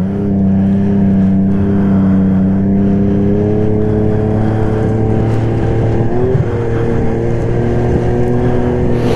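Snowmobile engine running steadily under way, its pitch stepping up slightly about six seconds in and then holding.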